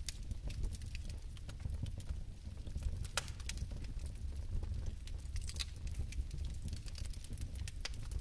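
Bioethanol fireplace flames burning, with a low steady rumble under irregular sharp crackles and pops.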